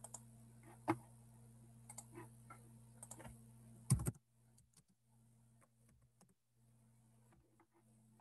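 Scattered clicks from a computer keyboard and mouse over a steady low electrical hum. A louder click comes about four seconds in, after which the hum drops and the clicks continue more faintly.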